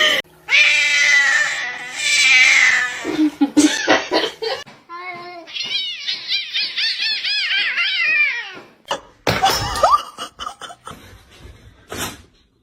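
A cat yowling in long calls that bend up and down, with a person laughing. Clicks and short knocks come near the end.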